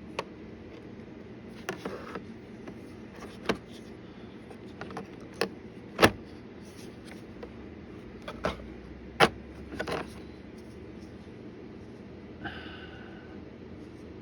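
Irregular clicks and knocks of a kitchen knife set and its carry case being handled, about ten in all, the loudest about six seconds in. Near the end a knock rings briefly with a metallic tone.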